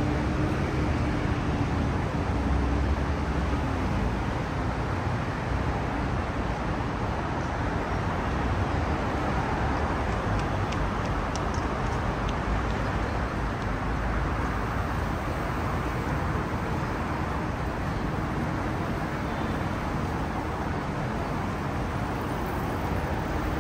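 Steady city-street traffic noise: cars and other vehicles running past in a continuous hum and rumble.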